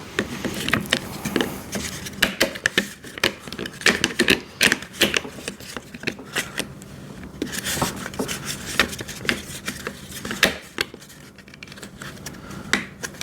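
Irregular clicks, taps and light rattles of plastic and metal parts being handled and fitted while an electric wood chipper is assembled.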